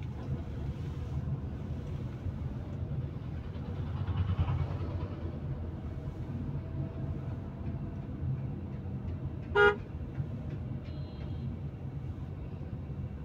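Steady low engine and road rumble inside a Tata Punch's cabin moving slowly in traffic. One short, loud vehicle horn toot sounds about ten seconds in.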